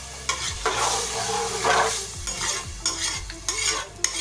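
Water poured into a hot pressure cooker onto rice just fried in ghee, sizzling and splashing in uneven surges.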